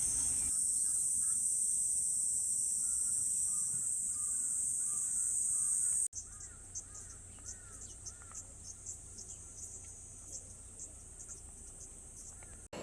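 Summer insects trilling: a steady high-pitched drone for about six seconds, then, after an abrupt cut, a rapidly pulsing high-pitched chorus. Faint short chirps sound underneath throughout.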